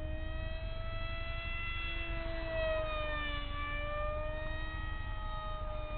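Electric motor and propeller of a small RC park-jet model airplane flying at full speed: a steady high whine whose pitch rises and falls slowly as the plane moves about, over a steady low rumble.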